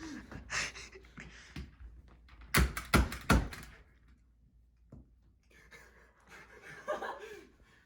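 Three quick dull thunks about a third of a second apart, a desk stapler being pressed down on food, followed by faint handling noises.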